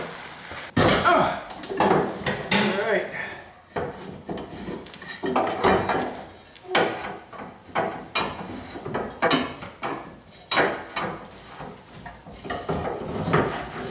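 Irregular metallic clanks, knocks and scraping as hands work under a pickup truck's fuel tank, loosening the filler and vent hoses. The sharpest knock comes about a second in.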